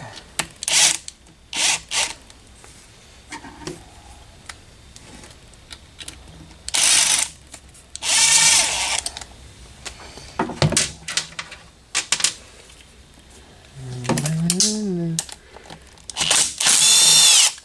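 Cordless drill-driver spinning in short bursts, the last and loudest with a rising whine as it runs out a bolt, while the oil return cover comes off the engine. Sharp metal clicks of bolts and parts fall between the bursts.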